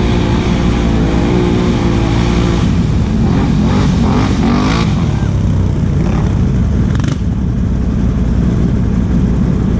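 Can-Am Outlander XMR 1000's V-twin engine idling steadily close by. Between about three and five seconds in, another ATV engine revs up and down as that quad spins through the mud.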